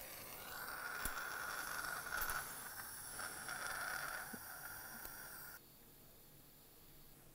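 A steady hiss with a whistling tone that cuts off suddenly about five and a half seconds in, with a couple of faint clicks along the way.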